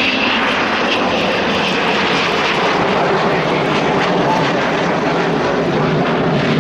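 Avro Vulcan XH558's four Rolls-Royce Olympus turbojets in flight: a loud, steady jet roar, with a high whistling tone that fades out in the first second.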